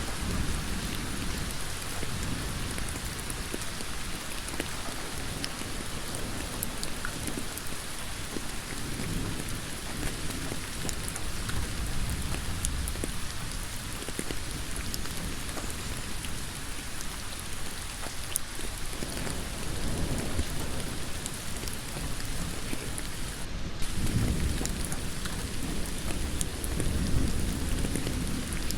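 Heavy rain falling steadily on a road, a dense hiss with fine drop ticks. A low rumble rises and falls underneath several times and is strongest near the end.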